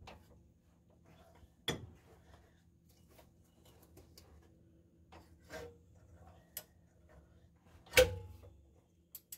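Scattered metallic clicks and clinks of tools and parts being handled during engine work, about five in all. The loudest comes about eight seconds in and rings briefly. A faint steady hum lies underneath.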